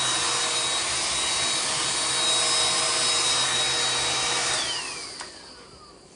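Amway hair dryer running with a steady rush of air and a thin high whine, then switched off about four and a half seconds in: the whine falls in pitch and the rush dies away as the motor spins down, with a click soon after.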